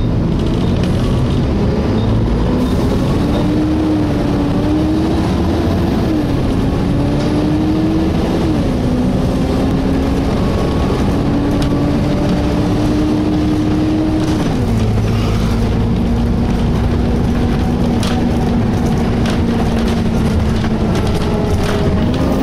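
Cooling fan of a Volvo B7TL double-decker bus whining over the engine and road rumble, heard from the lower deck. The whine climbs slowly and drops abruptly three times, about six, eight and a half and fourteen and a half seconds in.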